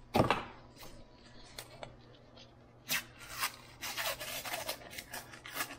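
A piece of drywall snapped along its scored line with a sharp crack about a quarter second in, then the paper facing peeled away from the gypsum core with crackling and tearing, busiest in the second half.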